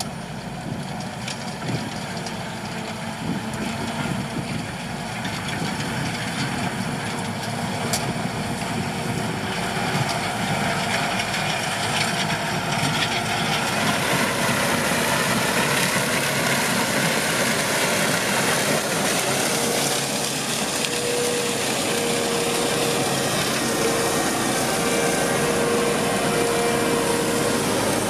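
Holmer T4-30 sugar beet harvester running in the field, its engine and lifting machinery making a steady rumble that grows gradually louder, as if coming closer.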